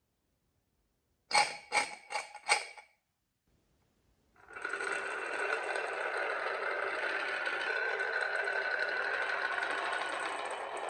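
Toy marble run: four quick clacks, then from about four seconds in a steady, continuous rolling rattle of marbles running along the track.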